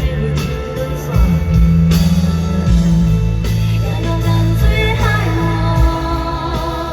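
Live pop concert music in a large arena: a heavy bass beat under guitar, with singing, as heard from the crowd.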